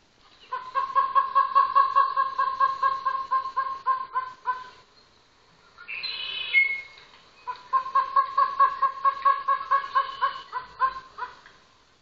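A recorded bird call played through laptop speakers: a long run of rapid, evenly repeated notes, a short higher-pitched call about halfway, then the rapid run again.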